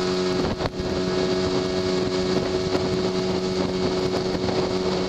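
Outboard motor of a small boat running steadily at speed, a constant engine hum, with water splashing along the hull.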